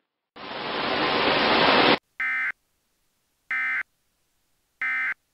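Emergency Alert System end-of-message: a hiss of static that grows louder and cuts off suddenly, then three short, identical bursts of digital data tones sent about a second apart, the EAS end-of-message code closing the alert.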